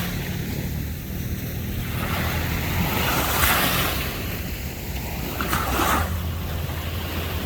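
Small surf washing onto a sandy beach, swelling twice, about three and a half and six seconds in, over a steady low hum.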